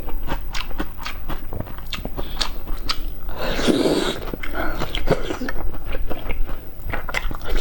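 A person biting and chewing eggs: a quick run of small clicks and smacks, with one longer, louder bite about three and a half seconds in.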